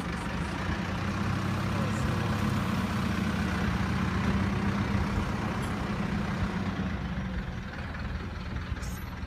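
A motor vehicle's engine idling: a steady low hum that eases off about seven seconds in.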